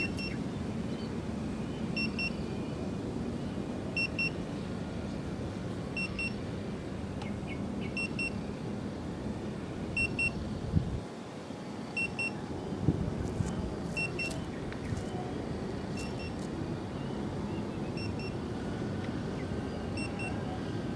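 CFly Faith 2S drone's low-battery warning: a short double beep about every two seconds over steady background noise. It signals that the battery is depleted and the automatic return-to-home has been triggered.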